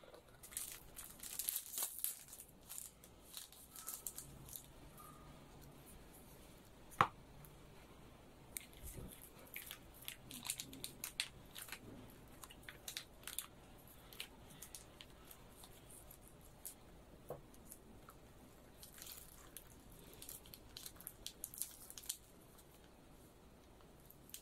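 Clear plastic packaging of a self-heating meal crinkling and tearing as it is handled and pulled open, in clusters of short crackles. One sharp click about seven seconds in.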